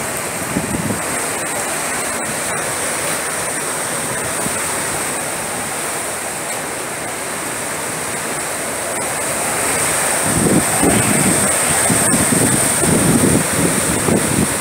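Hurricane wind blowing hard as a steady rushing hiss. From about ten seconds in, gusts buffet the microphone and it gets louder.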